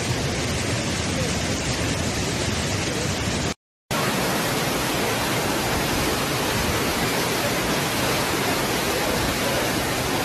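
Flash-flood water rushing, a steady, even noise. It cuts out for a moment about a third of the way in, then comes straight back.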